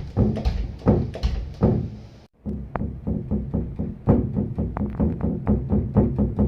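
Background music with a steady beat, breaking off briefly about two seconds in.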